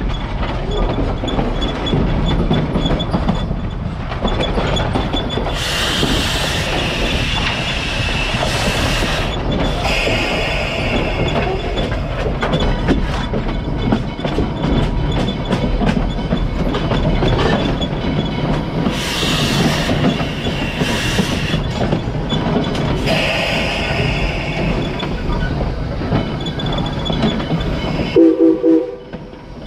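Pennsylvania Railroad #643, an 0-6-0 steam locomotive, rolling along the track, heard close to its running gear: a steady rumble and wheel-on-rail clatter, with several bursts of hissing about a second long. Near the end the noise drops away sharply.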